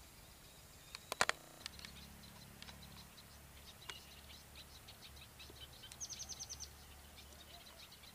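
Small birds chirping: scattered short, high calls, with a quick run of about eight high notes about six seconds in. A few sharp clicks about a second in are the loudest sounds.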